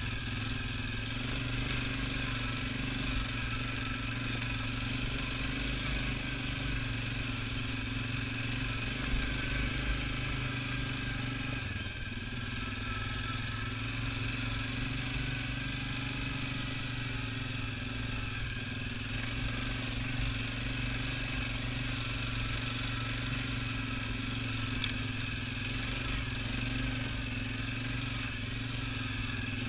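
Single-cylinder four-stroke ATV engine running steadily at a low, even pace while the quad crawls over a rough, rocky trail.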